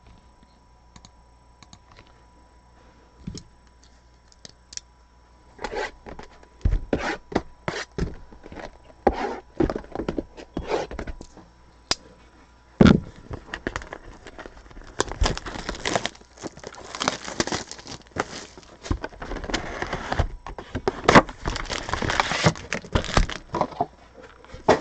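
Plastic wrapping on sports-card boxes and packs being torn and crinkled, with sharp crackles and clicks. It begins about six seconds in and grows denser and louder in the second half.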